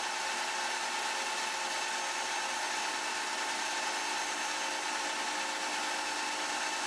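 Metal lathe running steadily while abrasive paper is held against a spinning steel part, polishing its radius: an even hiss over a steady whine.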